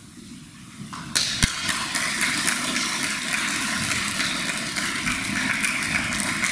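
An audience of seated students clapping, starting suddenly about a second in and keeping up steadily.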